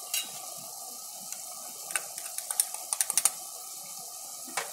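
Tomato-onion masala, thinned with a little water, simmering and sizzling in a large metal pot with a steady hiss. A quick run of sharp clicks and pops comes around the middle, with a couple more near the end.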